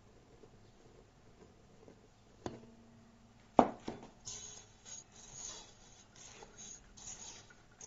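Two knocks against a mixing bowl, the first ringing briefly. After them comes irregular scraping and rustling as a hand works flour into soft dough in the bowl.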